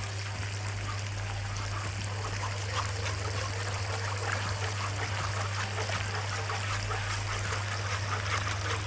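Wire whisk stirring thin béchamel sauce in a metal pot: steady liquid sloshing with many light clicks of the whisk against the pot.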